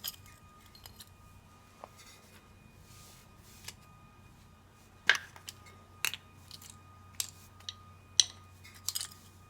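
Scattered clicks and light knocks of small parts being handled and shifted about. The sharpest come about five, six and eight seconds in, over a faint steady hum.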